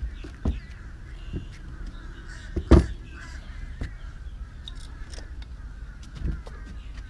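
Hard knocks and clunks as the plastic electrode pack of a Lectrasan marine toilet treatment unit is lifted out and handled. The loudest knock comes about three seconds in, with a few lighter ones scattered around it.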